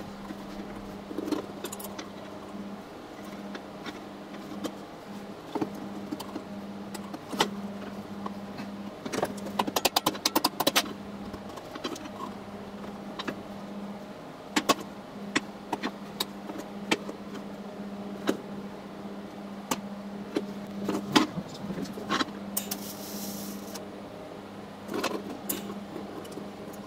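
Metal diffusion-pump parts and a TIG torch handled on a steel welding table: scattered clinks and knocks, with a quick run of rattling about ten seconds in, over a steady low hum. A short hiss sounds about two-thirds of the way through.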